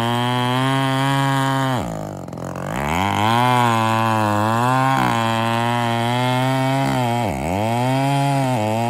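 Two-stroke chainsaw cutting into the base of a large, dead trembesi (rain tree) trunk. The engine runs high and steady but its speed dips sharply under load about two seconds in, recovers, and dips again briefly near the end.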